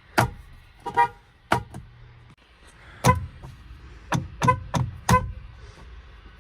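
Car horn tapped in about eight short toots, each well under half a second, irregularly spaced with a gap of about a second and a half in the middle.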